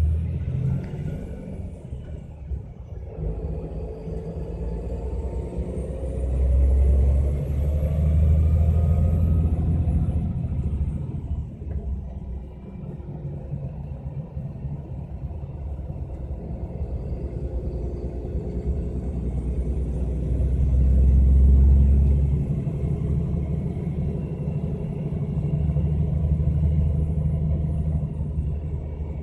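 MAN Lion's Coach with a ZF automated gearbox running downhill under retarder braking: a steady low rumble that swells twice, with a faint high whine that rises, holds and falls away, also twice.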